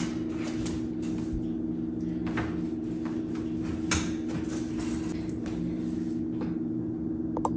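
A few light clicks and knocks from a metal wire dog crate as a dog bed is fitted inside it, over a steady low hum.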